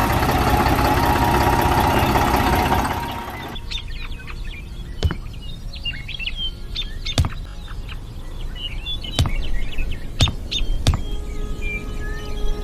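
A loud, steady machine-like running noise cuts off about three and a half seconds in. Birds chirp after that, and sharp knocks come every second or two.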